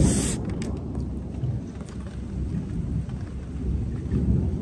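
Thunder rumbling over rain, loudest right at the start and swelling again near the end.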